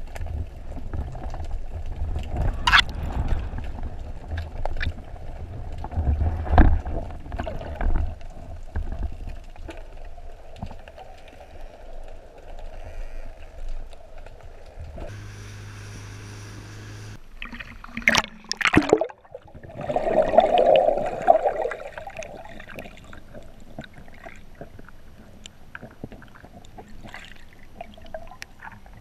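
Water gurgling and sloshing around the camera, with scattered clicks and knocks and a few louder surges of water noise.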